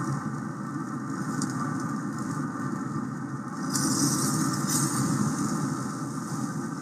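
Pellet grill running with a steady low hum, typical of its combustion fan, and a high hiss that swells for about a second roughly four seconds in.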